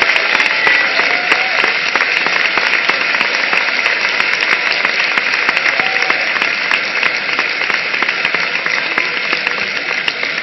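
Large audience applauding: dense, sustained clapping that eases off slightly near the end.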